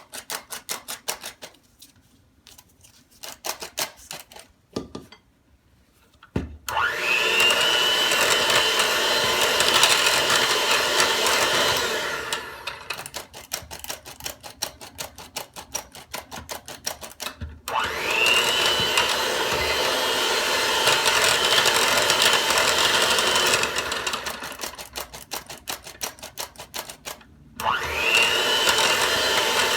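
Electric mixer beating flour into cake batter. Its motor starts with a rising whine and then runs steadily, drops back for a few seconds, and cuts out briefly twice before starting again. Before the motor starts there is a spell of rapid ticking.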